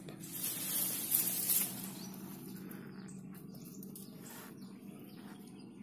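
Swamp ambience: insects droning steadily with faint bird chirps, and a brief rushing hiss in the first two seconds.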